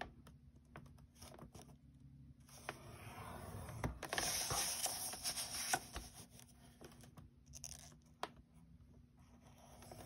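Plastic scoring tool drawn along cardstock in the grooves of a scoring board: a faint, dry scrape, longest and loudest from about three to six seconds in, with a few small clicks as the paper is shifted.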